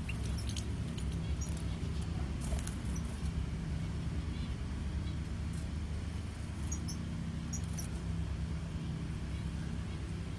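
A steady low mechanical hum with a few short, faint high chirps from European goldfinches, bunched in the first three seconds and twice more near the end.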